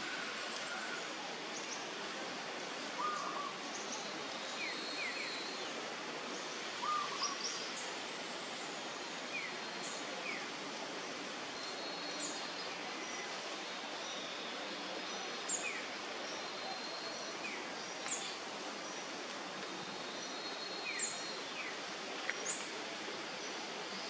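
Steady outdoor hiss with birds chirping now and then: short, quick high chirps and a few longer high whistled notes, scattered and not in any rhythm.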